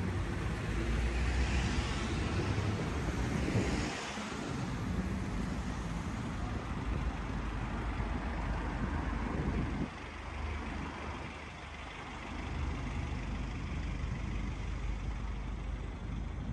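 Street traffic: vehicle engines and tyres rumbling close by, loudest in the first four seconds and dropping away about ten seconds in before building again. A white light box truck runs close to the camera.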